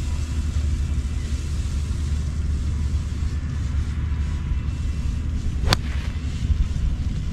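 Steady low rumble, with one sharp crack of a golf club striking a ball about five and a half seconds in.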